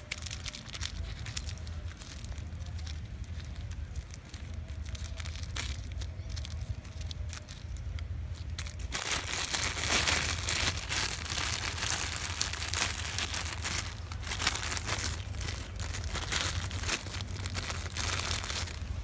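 Clear plastic sleeve wrapped around a branch crinkling and rustling as hands tie it off with plastic string and then open its top. The crinkling grows much louder about halfway through.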